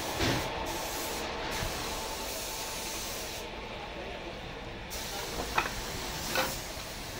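Steady hissing noise with a faint hum underneath, and a few light knocks, the sharpest about five and a half seconds in.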